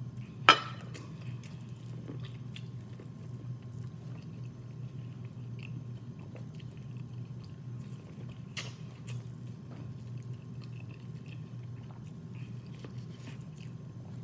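A person chewing food close to the microphone, with small mouth and eating noises and a few sharp clicks, the loudest about half a second in, over a steady low hum.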